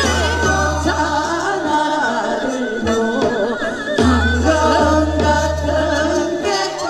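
Women singing a Korean folk-song (minyo) medley into microphones, amplified over instrumental accompaniment with deep bass notes held for a few seconds at a time.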